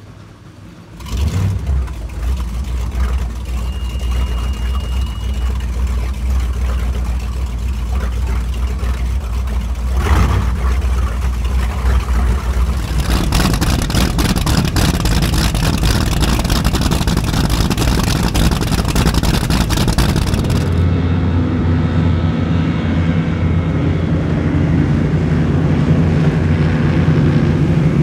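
High-performance powerboat engines rumbling, growing louder over several seconds. In the middle a rushing hiss joins in, then it settles to a steady low drone.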